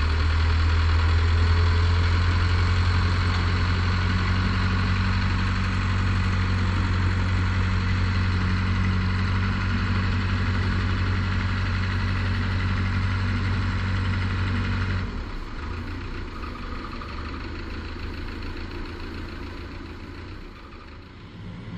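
Open inboard engine of a small steel boat running steadily with a deep drone. About three-quarters of the way through it drops sharply to a quieter, thinner running sound.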